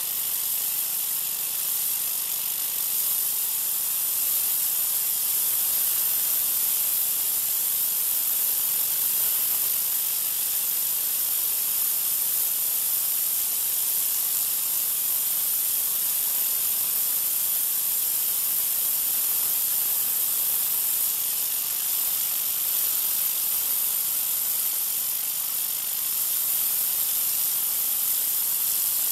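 Troy-Bilt 2200 psi pressure washer spraying concrete through an oscillating tip: a steady, unbroken hiss of water spray, with a faint steady hum underneath.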